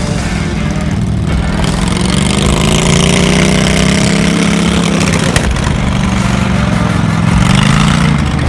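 An engine running, its speed and pitch drifting up and down a few times, with one sharp click about five seconds in.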